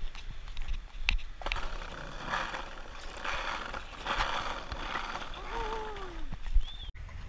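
Skateboard wheels rolling over rough asphalt, with sharp clacks of the board's tail and deck hitting the ground, the loudest near the end. A short falling tone sounds shortly before that last clack.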